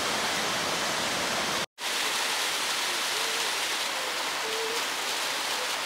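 Steady rush of a waterfall in full snowmelt flood. A brief dropout about two seconds in, then the lighter splash of a smaller cascade with less low rumble.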